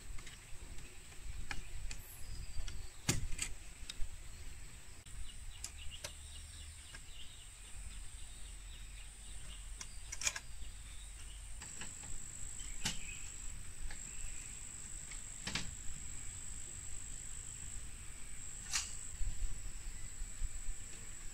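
Split-bamboo strips and stakes knocking and clacking now and then, about half a dozen sharp knocks, as a bamboo garden fence is woven and tied. Behind them, a steady high-pitched insect trill.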